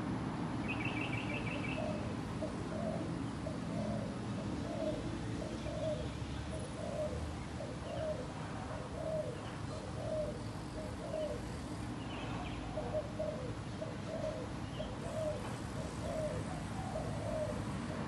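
Spotted dove cooing: a long, even run of low coos, about two a second, over a steady low rumble. A brief high chirp from another bird comes about a second in.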